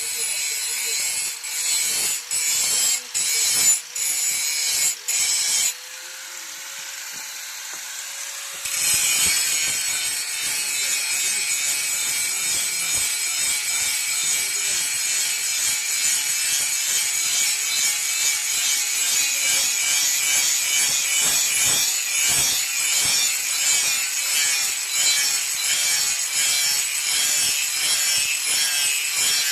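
Steady, rough scraping of a hand-forged steel boti blade being sharpened, metal rubbing back and forth. The sound is broken by short gaps early on and goes quieter for a few seconds before picking up again about nine seconds in.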